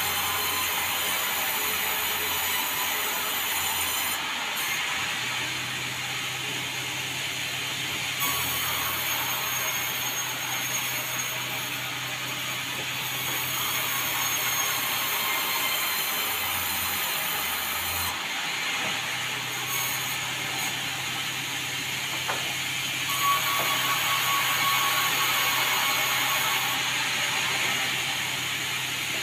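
Sawmill machinery running steadily while sawing meranti timber into boards, a continuous mechanical whir and blade noise. A thin, high whine comes in about two-thirds of the way through.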